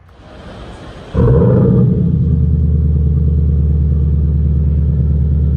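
Ford Mustang Mach-E GT's prototype Borla active performance sound system: speakers under the car play a V8-style engine sound. It starts suddenly about a second in and holds steady and loud.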